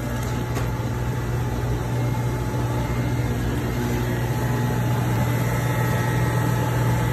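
Steady low machinery hum with a faint, thin high tone over it, from the market's refrigeration and live-fish-tank equipment running.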